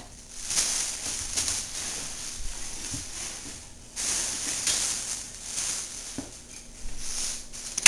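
Rustling and a few light clicks as plastic toy domino-set pieces and their packaging are handled.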